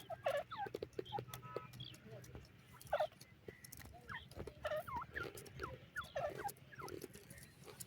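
Irani teetar (partridge) calling: a series of short hooked chirps and clucks, repeated irregularly, over a steady low hum.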